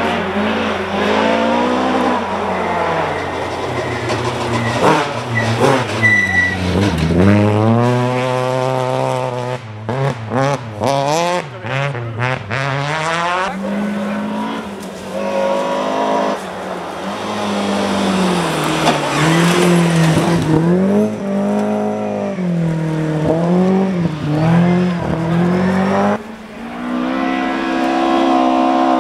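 Rally car engines at full throttle, revs climbing and dropping again and again with gear changes and lifts as the cars pass one after another, with a burst of crackling around ten seconds in. Near the end a Volvo 240 rally car comes in at high revs.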